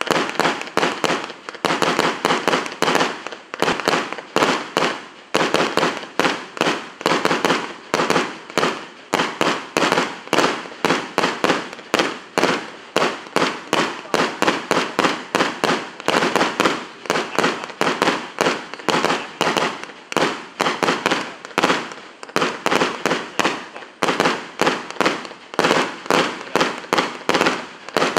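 Multi-shot fireworks cake firing shot after shot in rapid succession, a steady train of sharp pops about three to four a second with no break.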